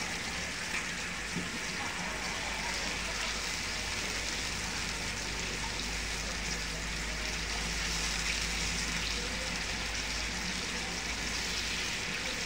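Thin, watery lemon-garlic sauce bubbling and sizzling steadily in a nonstick frying pan on the hob.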